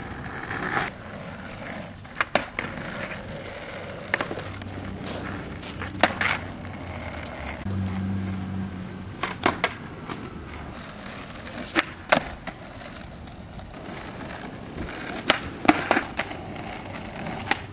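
Skateboard wheels rolling on asphalt, broken every few seconds by sharp clacks of the board being popped and landing during flatground trick attempts. The clacks come singly and in pairs, with a quick run of them near the end. A low hum runs for a few seconds in the middle.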